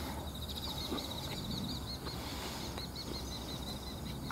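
Outdoor ambience: a steady low wind rumble with a high, rapidly wavering trill from a wild bird or insect that stops near the end, and a few faint clicks.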